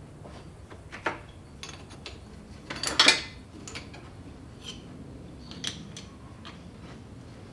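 Metal clinks and clatter from handling tools and parts during work on a car: a sharp clink about a second in, a louder clatter about three seconds in, then a few lighter clicks.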